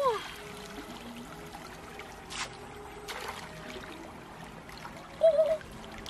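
Shallow stream running steadily. Two short pitched tones stand out over it: an arching one at the very start and a quick warbling one about five seconds in.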